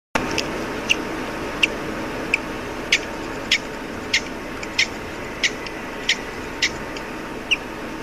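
A hatching bird peeping from inside its cracked egg: short high peeps, about twelve at even spacing, a little under two a second, over a steady hiss.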